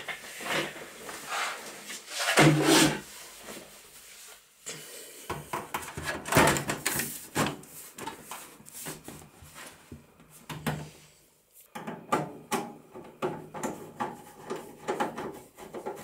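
A metal PC case side panel being fitted and screwed on: a run of knocks, clicks and scrapes, some of them sharp and loud.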